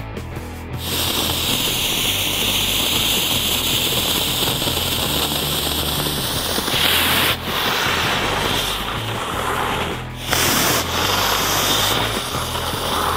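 Firework fountains on a toy truck hissing as they spray sparks. The hiss starts about a second in, changes about seven seconds in, and breaks off briefly near ten seconds before starting again. Background music plays underneath.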